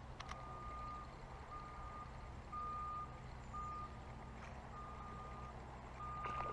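Faint electronic beeping: a single steady tone repeating about once a second, each beep about half a second long, over a steady low hum.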